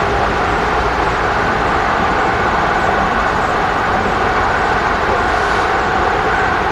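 Freight cars rolling past: a steady, loud noise of steel wheels running on rail.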